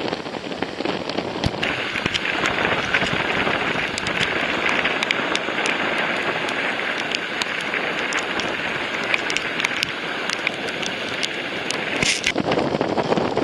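Rain falling steadily, a rushing hiss full of small crackling drop hits, which grows louder about a second and a half in.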